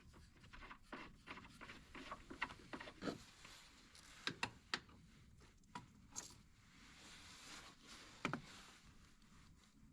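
Faint, irregular clicks, taps and scrapes of hand tools and metal parts being handled, with the sharpest clicks a little over four seconds in and about eight seconds in.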